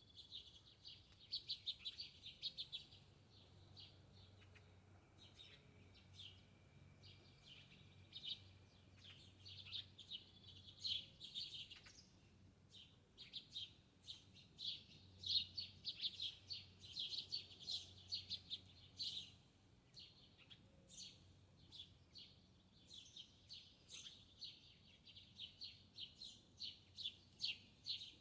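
Small birds chirping and twittering: quick, high chirps in busy runs that come and go throughout, with brief lulls around 12 and 20 seconds in.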